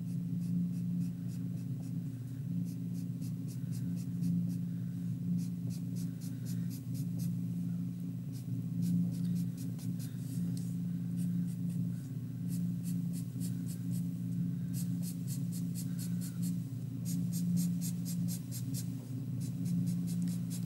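Thick black Sharpie marker drawing short lines on paper: quick strokes in runs of several a second, with short pauses between runs, over a steady low hum.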